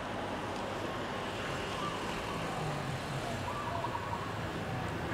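Steady hum of road traffic, with no one speaking.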